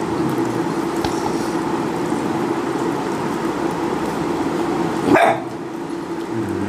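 A dog gives one short, loud bark about five seconds in, over a steady background hum.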